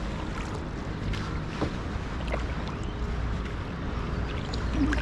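A canoe being paddled: water splashing and dripping, with a few short clicks.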